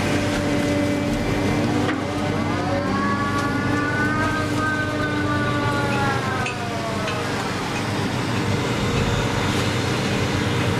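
Engine and hydraulics of the grab-carrying machine running steadily, heard from inside the operator's cab. From about two seconds in, a whine rises in pitch, then falls away again a few seconds later as the machine works the clamshell grab.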